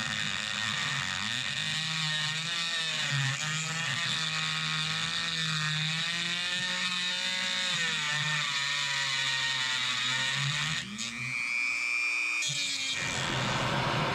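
Dremel rotary tool with a cutting wheel grinding off the rounded-off bolts on a K24 turbo's wastegate, its whine wavering in pitch as it loads up. It stops about eleven seconds in, and near the end a handheld gas torch starts hissing.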